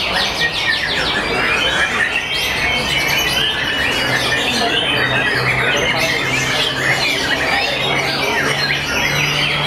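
White-rumped shamas (murai batu) singing together, a dense, unbroken chorus of fast, overlapping whistles and trills.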